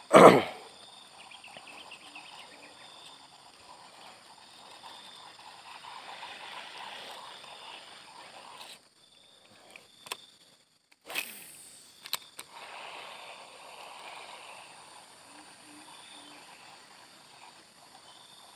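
Quiet outdoor ambience with a faint steady hiss and hum. A loud whoosh falls in pitch at the very start, and another whoosh with a few sharp clicks comes about eleven seconds in.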